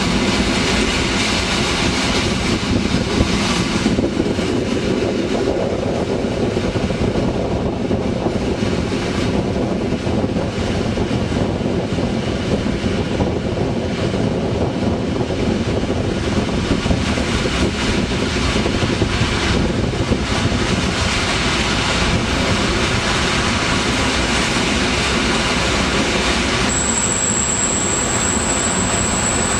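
Flåm Railway train running along the track: a steady rumble of wheels on rails. A thin, high, steady whine sets in near the end.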